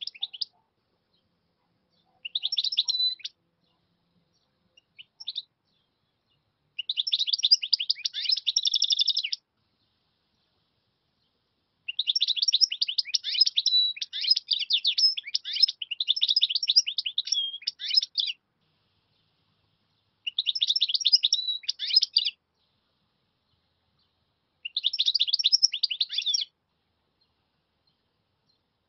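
A European goldfinch singing in bursts of fast, high twittering, with short silent pauses between phrases; the longest phrase lasts about six seconds.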